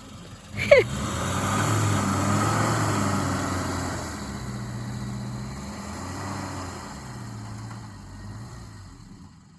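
Suzuki Samurai's engine working under load, revving up about a second in and then easing off and fading, as the 4x4 tries to turn around in deep snow and sinks deeper. A brief high falling squeal just before the engine picks up.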